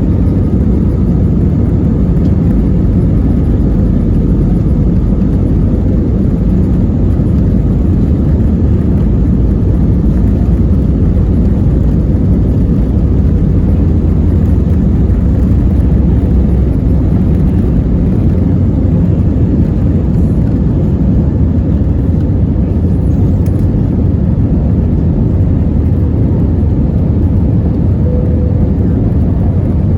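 Steady low rumble of an Airbus A320's engines and airflow heard from inside the passenger cabin.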